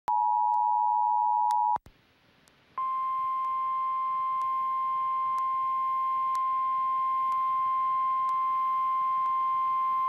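Emergency Alert System two-tone attention signal cutting off about two seconds in. After a pause of about a second, a single steady tone, the NOAA Weather Radio 1050 Hz warning alarm, starts and holds, announcing a relayed weather warning.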